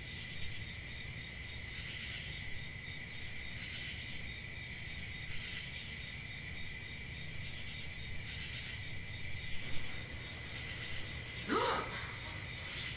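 A steady chorus of chirping crickets that runs on without a break. Near the end comes one brief sound rising in pitch.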